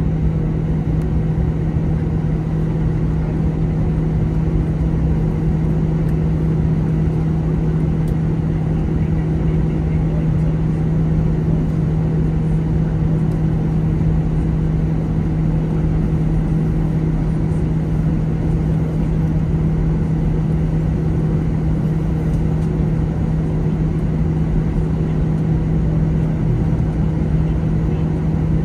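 Steady cabin drone inside an Airbus A321 on the ground after landing, engines at idle, with a constant low hum running through it.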